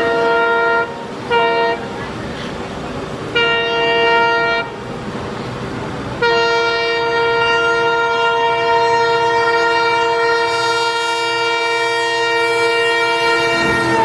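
Indian Railways locomotive air horn sounding on an approaching express train: three short blasts, then one long continuous blast from about six seconds in, whose pitch drops near the end as the locomotive rushes past. The train's rumble runs underneath.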